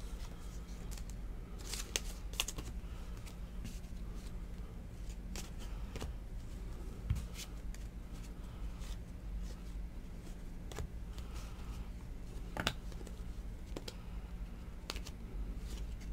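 Donruss Elite football trading cards being flipped through by hand: faint scattered clicks and rustles of card stock sliding over card, with a few sharper ticks, over a steady low hum.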